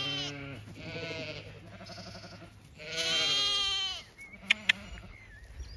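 Zwartbles sheep bleating: a short call at the start, fainter calls around a second in, and one long, loud bleat about three seconds in. Two short, sharp clicks follow soon after.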